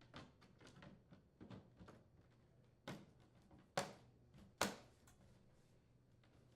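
Samsung dryer outer door panel being pressed onto the door and snapped into place. A few light clicks and taps are followed by three sharp snaps in quick succession, the last two the loudest.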